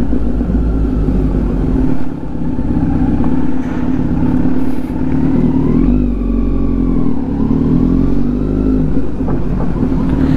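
Kawasaki Z900's inline-four engine running through a loud exhaust while the motorcycle is ridden slowly at low revs, with brief dips in the note as the throttle eases.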